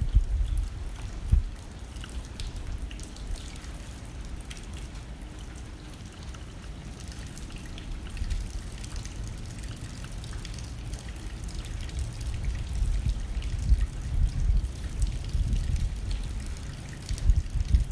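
Rain hitting a window with gusting wind: scattered drop ticks over an uneven low rumble that swells and eases, stronger near the end.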